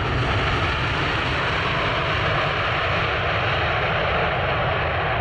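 Jet airliner's engines, a loud steady noise that holds level, without rising or falling.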